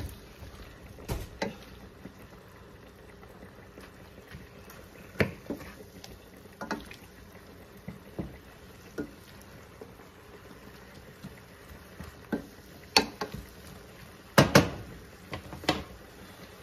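Chorizo and Napa cabbage simmering faintly and steadily in a stainless steel sauté pan, with a wooden spatula knocking and scraping against the pan at irregular intervals; the loudest strokes come in a quick cluster near the end.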